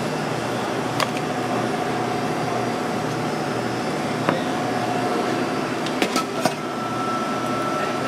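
Steady mechanical hum of a deli shop's room machinery, with a faint steady tone running under it. Light clicks and knocks come about a second in, just past four seconds, and in a quick cluster around six seconds.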